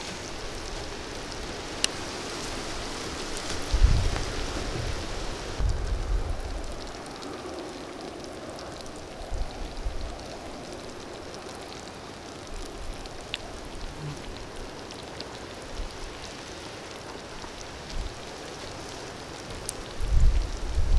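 Steady sizzling hiss of meatloaf juices cooking in a glass baking dish over a charcoal kettle grill, with a few faint ticks and crackles. The hiss quiets about six seconds in. A few dull low thumps come around four and six seconds in and again near the end.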